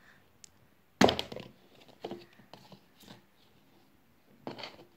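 Large hollow plastic surprise egg being handled and pulled open: one sharp knock about a second in, then a few lighter plastic clicks and taps.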